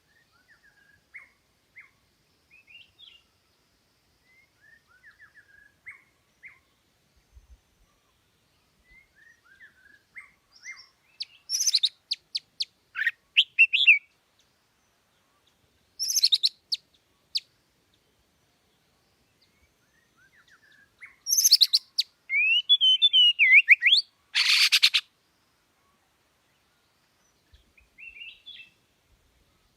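A songbird singing in separate bursts: soft, quiet twittering at first, then loud rapid phrases of sharp chirps and trills from about a third of the way in, ending the last loud phrase with a short harsh buzzy note, then a few soft chirps.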